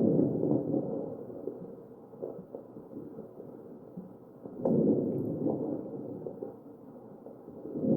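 Muffled breath sounds of a mechanically ventilated patient heard through an electronic stethoscope on the chest, with crackles. One breath swells in at the start, another about halfway through and a third at the very end, with a few short crackling pops among them.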